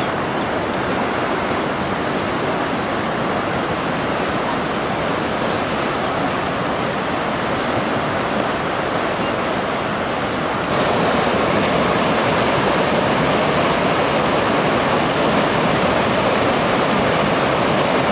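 Steady rush of whitewater pouring through an artificial canoe slalom course. About ten and a half seconds in it becomes louder, with more hiss.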